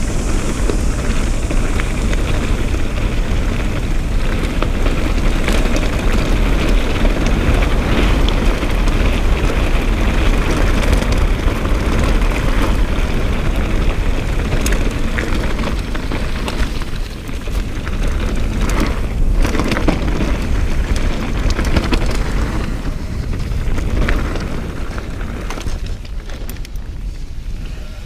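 Wind buffeting the microphone and mountain bike tyres rolling fast over a dirt trail, a steady deep rush with scattered clicks and rattles from the bike. The rush eases a little near the end.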